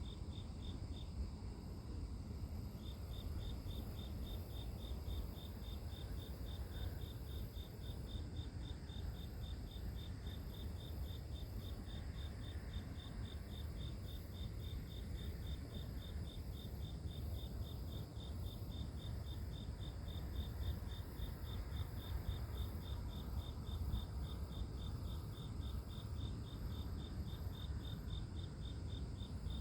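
Night insects chirping: a cricket-like chirp repeating evenly a few times a second, pausing briefly about a second in, over steady high-pitched trilling of other grass insects and a low rumble.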